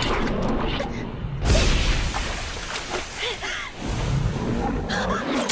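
Anime action-scene soundtrack: dramatic music mixed with sound effects, a heavy boom about one and a half seconds in, and whooshes.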